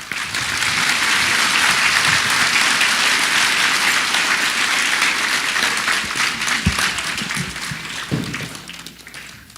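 Large audience applauding steadily, the clapping dying away over the last couple of seconds.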